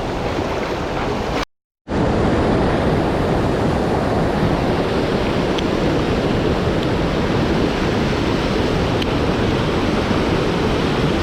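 Rushing water of a swollen mountain stream: a steady, loud, even rush. It cuts out briefly about a second and a half in, then returns a little louder.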